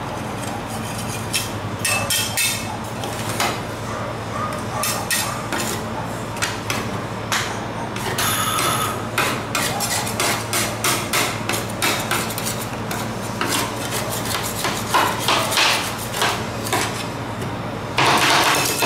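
Steel spatulas chopping and scraping on a frozen cold plate, working crushed Oreo cookies into liquid cream base for rolled ice cream: irregular metal taps and scrapes over a steady low hum, turning into fast continuous chopping near the end.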